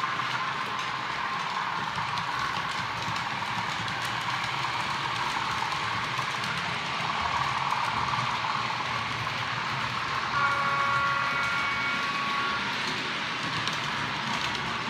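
OO gauge model trains running on the layout: a steady whirr of small electric motors and wheels on the rails. About ten seconds in, a pitched tone sounds for about two seconds.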